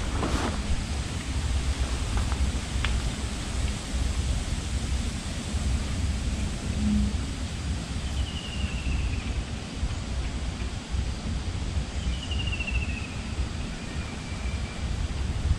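Wind buffeting the microphone with a steady low rumble, and leaves rustling. A bird gives a short falling whistled call twice in the second half.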